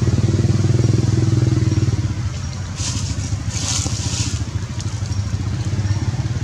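An engine running steadily with a low, pulsing hum. About three seconds in, dry leaves rustle and crackle for a second or so.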